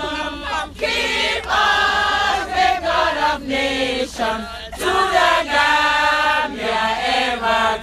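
A group of men and women singing together, with held notes in phrases broken by short pauses.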